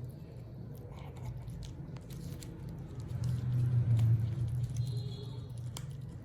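Kittens eating, with small wet chewing and smacking clicks over a low, steady hum that grows louder about three seconds in.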